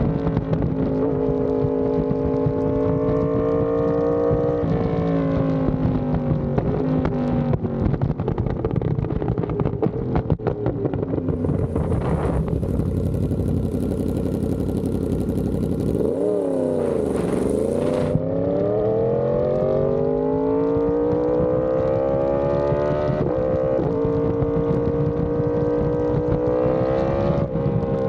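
Yamaha R1M's crossplane inline-four through an SC Project exhaust, pulling hard through the gears: the pitch climbs and drops back with each upshift, several times over. About halfway the engine eases off, then the revs fall sharply and climb again, with wind rushing past throughout.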